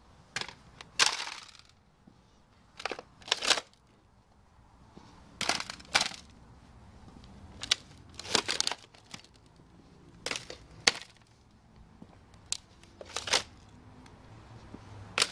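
Metal-cased Nissan Leaf battery modules clacking and knocking as they are handled and set down: about a dozen sharp clacks, often in pairs, with quiet gaps between.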